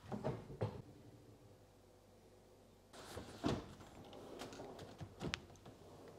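Light knocks, clicks and rattles as a wooden kitchen door front is handled against an open integrated dishwasher door and hooked onto its bottom brackets. There are two knocks at the start, then a busier run of knocks and rattles from about halfway.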